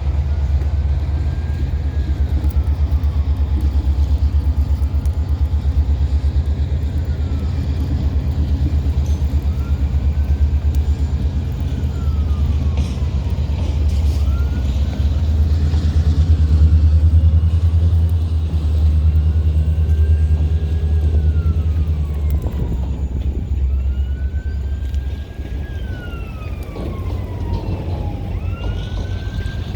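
A siren wailing, its pitch rising and falling every two to three seconds, over the louder steady low rumble of an idling engine that stops about 22 seconds in.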